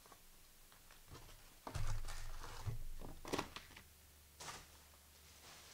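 A trading-card pack wrapper being torn open and crinkled, in a few short noisy bursts starting about two seconds in and one more shortly before the end.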